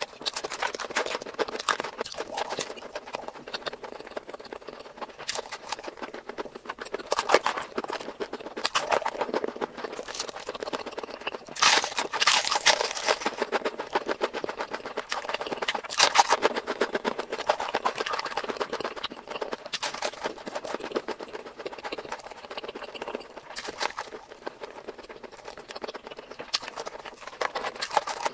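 Close-miked ASMR eating sounds: chewing and wet mouth smacks with many sharp, irregular clicks. There is a louder, busier spell about halfway through.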